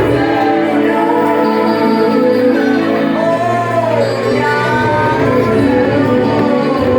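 Music with singing: a sung melody gliding over sustained low accompaniment.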